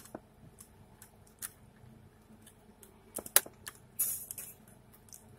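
Small scattered plastic clicks and scrapes as a screwdriver pries at the locking clips of a laptop DVD drive's front faceplate, with a sharper click about three seconds in and a short scrape about a second later.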